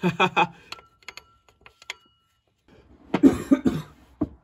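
A man laughing briefly, a few light clicks, then coughing and spluttering near the end after grit falls into his open mouth.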